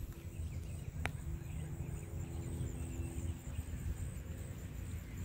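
Outdoor park ambience: a constant low rumble with a faint steady hum and a steady high thin tone, a few faint chirps, and one sharp click about a second in.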